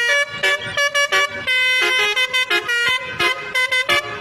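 Telolet basuri musical bus horn playing a quick melody of short, changing notes, with a few held longer.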